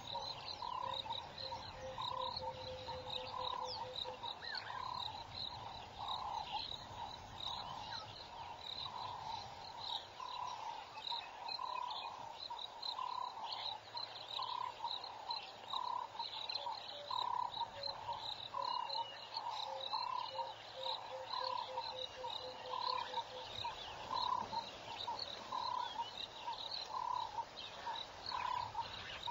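Evening chorus of frogs and insects: one call repeats steadily, about three every two seconds, over a high insect trilling. Twice, a run of lower notes falls in pitch, once at the start and again about halfway through.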